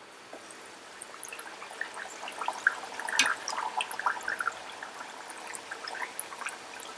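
Stuffed urad dal puri (radhaballavi) deep-frying in medium-hot oil: the oil bubbles and crackles in scattered pops, building from about a second in, with one sharp pop near the middle.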